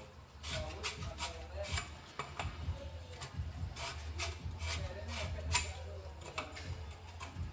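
A wooden plug twisting and rubbing inside the heat-softened end of a plastic telecom conduit pipe: a series of short scraping strokes, roughly two a second, over a steady low hum. The plug now sits loose in the widened pipe end.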